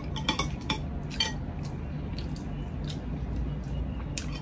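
Metal spoon and fork clinking and scraping on ceramic plates while eating: a quick run of clicks in the first second or so, then a few sparser ones, over a steady low hum.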